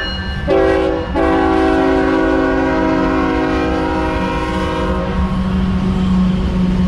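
Freight train's diesel locomotive sounding its multi-note air horn: a short blast, then a long one lasting about four seconds that ends about five seconds in. Underneath, the locomotives' engines run with a steady rumble.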